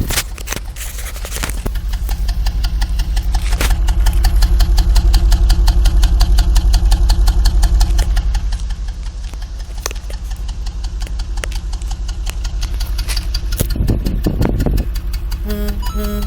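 Exhaust of a 1989 Toyota Supra's 7M-GTE turbocharged straight-six at idle: a rough, uneven note over a fast steady run of pulses, getting louder for a few seconds in the middle, then easing. To the owner it sounds almost like one cylinder misfiring.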